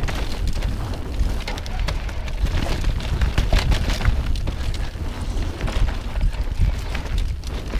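Wind buffeting an action-camera microphone during a fast enduro mountain-bike descent on a dirt trail, a steady low rumble. Tyre noise over the ground with frequent clicks, knocks and rattles from the bike.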